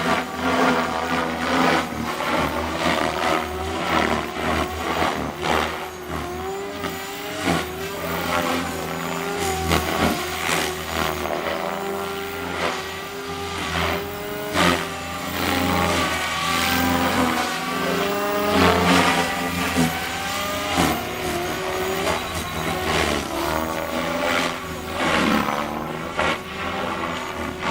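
SAB Goblin 500 electric RC helicopter flying, its motor and rotor whine rising and falling in pitch as it is put through manoeuvres. A steady low rotor drone runs underneath.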